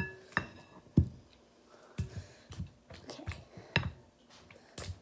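A spoon stirring slime in a bowl, knocking and clicking against the bowl at irregular moments, about eight times, as the activator begins to thicken the slime.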